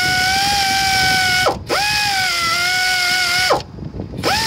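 Pneumatic air ratchet spinning cylinder head bolts down into the block: a steady high whine that dips and stops about a second and a half in, runs again, then cuts off. Two short blips of the tool follow near the end.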